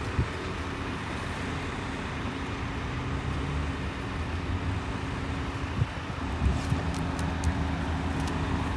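Road traffic: a vehicle engine running with a steady low hum, with a few light clicks in the second half.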